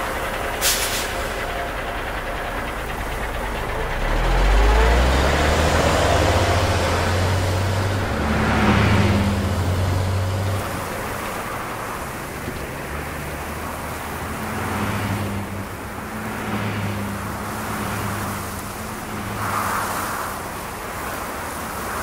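Urban road traffic: a vehicle engine climbing in pitch in steps as it pulls away, over a steady traffic hum. A sharp click comes about a second in, and the engine is loudest a few seconds later.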